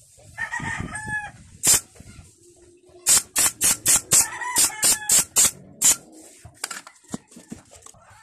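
Pneumatic upholstery staple gun firing staples through fabric into a wooden bench frame: one shot, then after a pause a quick run of shots about three to four a second. Chickens cluck in the background.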